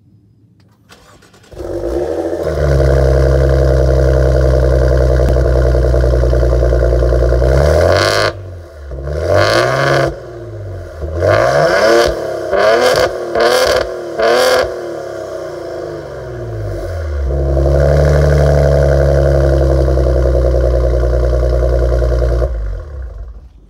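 2018 Maserati Ghibli SQ4's twin-turbo V6 starting up from cold and settling into a loud high idle, with vapour from the quad exhausts. It is then blipped through five or six short revs, each rising and falling, and runs at a high idle again before it is switched off near the end.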